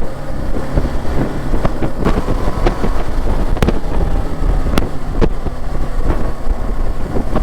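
BMW G 310 GS single-cylinder motorcycle being ridden at road speed: the engine runs steadily under heavy wind rumble on the microphone, with a few sharp clicks.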